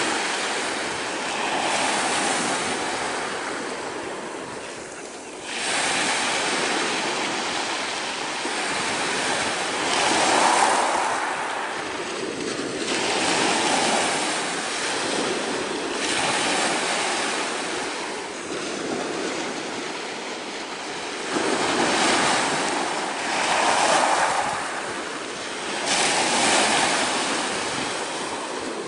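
Small waves breaking and washing up a pebble beach, the surf swelling and falling back every few seconds.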